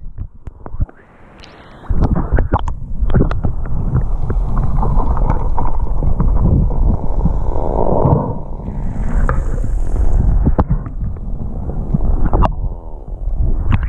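Muffled underwater noise heard through a submerged action camera: a heavy, low rumble of churning water from about two seconds in, with scattered knocks and clicks, as a spearfisher swims close to the camera and handles a caught sea bass.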